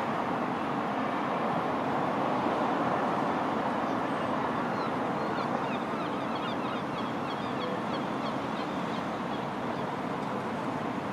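Steady city rumble of traffic and the railway heard from above, with a run of quick high bird chirps from about five to nine seconds in.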